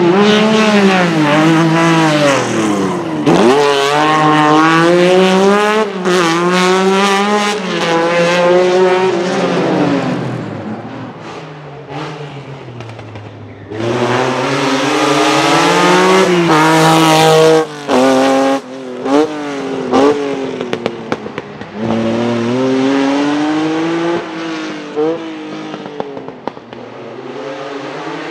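Lancia Stratos HF Group 4 rally cars' mid-mounted Ferrari Dino V6 engines revving hard and running up through the gears, the revs climbing and falling again and again. The sound fades for a few seconds in the middle, then comes back loud with several abrupt throttle lifts and short blips.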